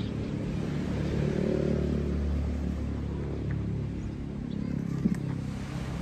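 A low engine rumble that swells about two seconds in and then eases off, with a couple of faint knocks about five seconds in.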